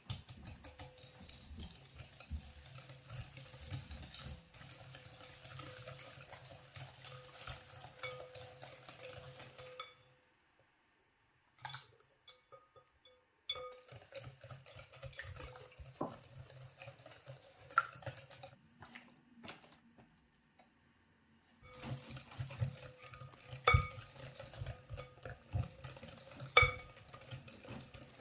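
Kitchen utensils stirring, scraping and clinking against a bowl, in three stretches with short pauses between. Several sharp clinks stand out near the end.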